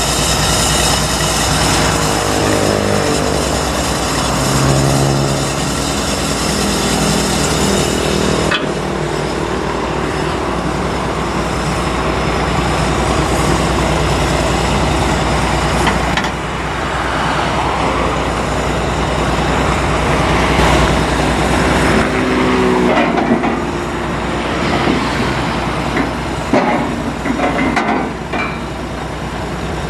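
Heavy diesel engines running. First a rice combine harvester's engine rises and falls in pitch as it is driven. Then, after a cut, a truck's engine runs steadily, with a few sharp knocks near the end.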